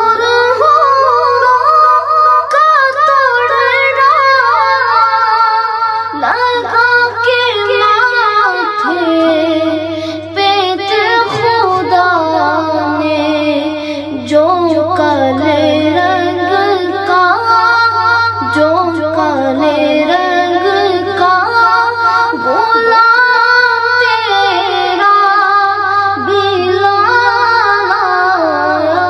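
A boy singing a naat, an Islamic devotional song, in a long, ornamented melody with wavering held notes and gliding pitch, over a steady low hum.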